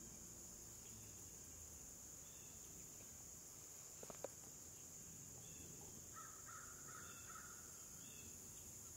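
Faint outdoor quiet with a steady high insect drone. About four seconds in comes a brief sharp call. From about six seconds there is a short run of distant bird calls, five or so notes.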